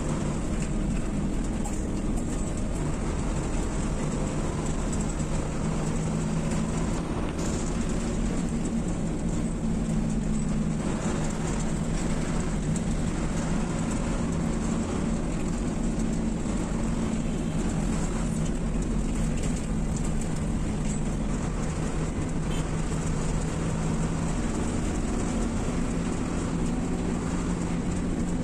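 Bus engine drone and road noise heard from inside the cabin of a moving intercity coach: a steady low hum with an even rush of tyre and wind noise, unchanging throughout.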